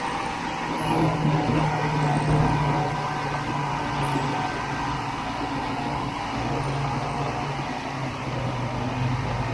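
Snowmobile engine running at a steady cruise, heard from aboard the moving sled, its tone holding nearly even throughout.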